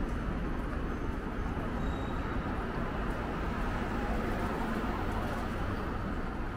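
Steady street traffic noise: a continuous low rumble and hiss of passing road vehicles.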